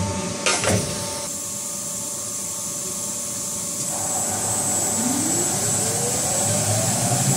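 CNC metal spinning machine running: a brief burst of noise about half a second in, a steady machine hum, then from about five seconds a steadily rising whine as the spindle brings the clamped sheet blank up to speed.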